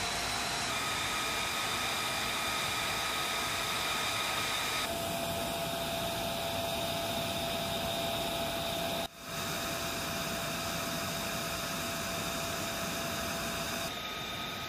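F-35B's jet engine running on the ground: a steady rush of noise with a high whine above it. The whine shifts slightly in pitch a few times, and the sound drops out for an instant about nine seconds in.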